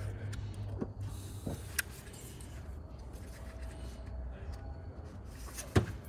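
Small clicks and taps of a screwdriver and plastic parts being handled while a steering-wheel switch module is worked on, with one sharper knock near the end, over a low steady hum.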